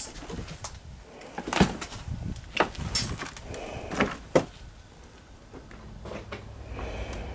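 A handful of sharp knocks and clicks, irregularly spaced, loudest about a second and a half in and again around four seconds.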